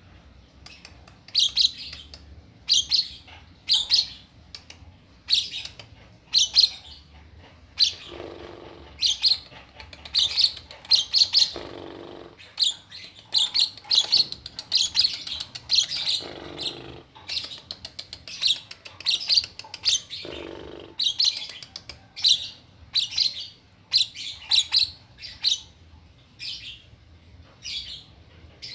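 Two-month-old lovebird chirping: sharp, high chirps repeated over and over, set off by a person's coughing. Four short, lower coughs fall between the chirps.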